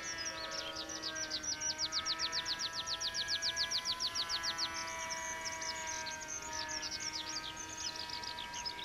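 Songbirds chirping, one giving a fast run of short descending notes, about nine a second, from about one to five seconds in. Underneath, a faint steady whine that wavers slowly in pitch, from the small electric RC plane's brushless motor and two-blade propeller.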